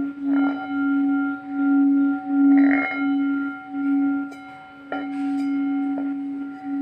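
Vibrating metal ringing with one sustained tone and faint higher overtones, swelling and fading in a steady wobble. Two light clicks come about five and six seconds in.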